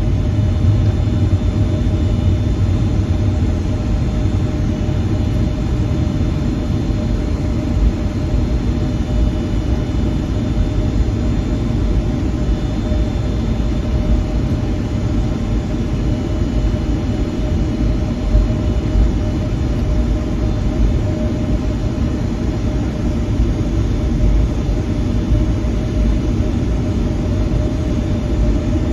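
Cabin noise inside a Boeing 757-200: a steady low rumble of airflow and the Rolls-Royce RB211 turbofans running at a constant setting, with a steady hum and a faint high whine over it.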